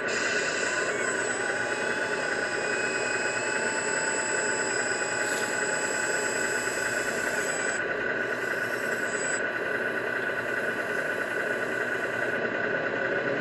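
Radio-controlled MAN scale truck running, its drive giving a steady mechanical hum with thin high whines over it; the highest whine stops about nine seconds in.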